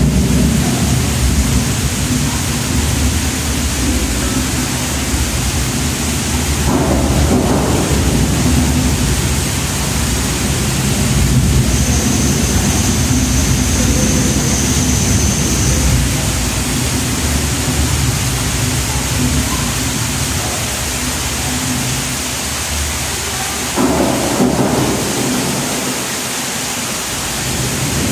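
Simulated flash flood: a loud, steady rush of muddy water pouring down an artificial slot canyon behind glass, with a deep rumble underneath.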